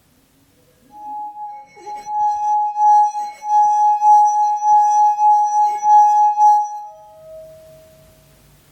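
A drinking glass of Fernet and Coke made to sing by rubbing its rim, giving one steady ringing tone for about six seconds, then a second, lower tone that fades near the end.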